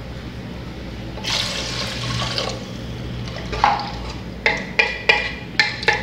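Water poured into an aluminium pressure cooker of sautéed rice, splashing and hissing about a second in. From near the middle, a wooden spoon stirs the rice and knocks repeatedly against the pot's sides.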